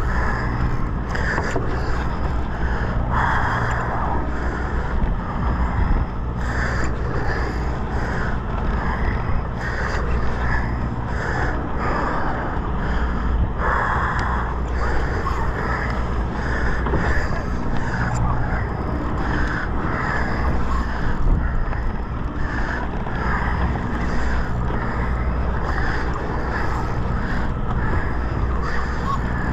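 Sportfishing boat's engine running with a steady low hum, under an uneven rushing noise that comes and goes.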